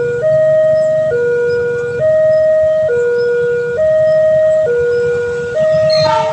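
Two-tone electronic warning siren of a railway level-crossing barrier, switching between a lower and a higher tone about once a second, sounding to warn of an approaching train.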